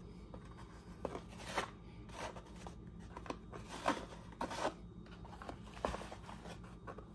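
A stack of trading cards handled by hand, the cards sliding and tapping against one another in a series of short, light clicks and rustles over a faint low hum.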